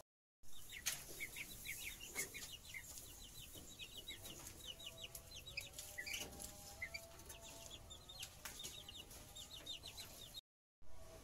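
Young chickens peeping in a wire cage: many short, high, falling peeps in quick succession, with a few sharp clicks. The sound breaks off briefly at the start and again about ten seconds in.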